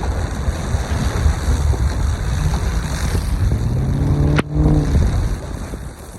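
Strong storm wind buffeting the microphone, a heavy low rumble. About three seconds in, a low droning hum rises in pitch and holds briefly, broken by a sudden click; the rumble eases off near the end.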